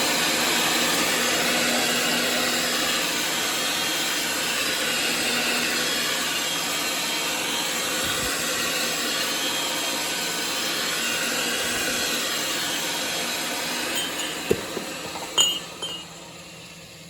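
Power pipe-threading machine running, its die cutting threads on the end of a pipe with a steady grinding noise. The machine winds down about fourteen seconds in, followed by a few sharp metallic clinks.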